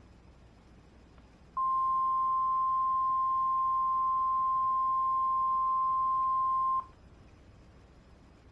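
NOAA Weather Radio warning alarm tone, a single steady 1050 Hz beep of about five seconds that starts about a second and a half in and cuts off sharply. It is the alert that signals a weather warning is about to be read.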